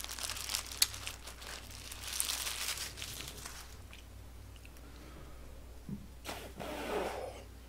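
Paper food wrappers crinkling and crackling with sharp clicks for the first few seconds as they are handled, then quieter chewing.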